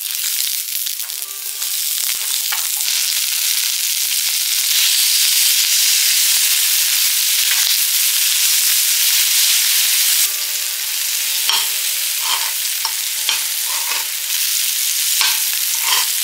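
Food sizzling as it fries in a hot pan, a steady loud hiss, with a few short light knocks in the second half.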